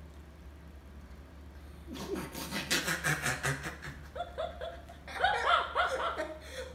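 A woman and a boy laughing hard together. It starts suddenly about two seconds in, after a quiet start, and runs on in rapid bursts of 'ha ha ha'.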